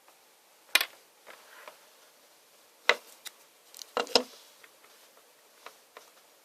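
Sharp plastic-and-cardboard clicks and knocks of a smartphone's box and accessories being handled, a few loud ones with fainter ticks between.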